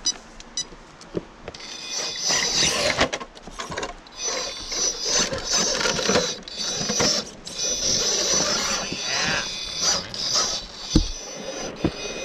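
A 1:10-scale RC rock crawler's electric motor and geared drivetrain whining in stop-start bursts as it crawls over rock, with clicks and scrapes of its tires and chassis on stone. A sharp thump comes near the end.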